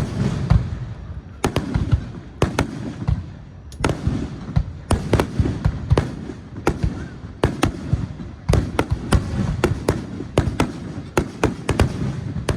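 Aerial firework shells bursting in a rapid, irregular barrage: sharp bangs two or three a second over a continuous low rumble.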